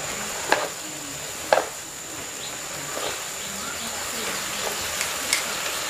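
Leafy greens sizzling in a pan over a wood fire as they are stirred with a wooden spatula, which knocks against the pan about four times, loudest about a second and a half in.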